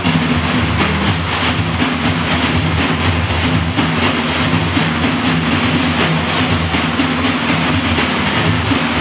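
Ensemble of large frame drums played together in a dense, continuous rolling rhythm, with a small jingle tambourine among them.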